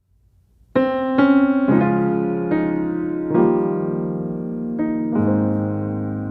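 Piano music: soft notes and chords struck one after another and left to ring, starting about a second in.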